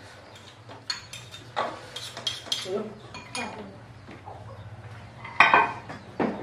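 Spoons clinking and scraping against plates and bowls during a meal, in scattered short clinks with one louder clatter about five seconds in.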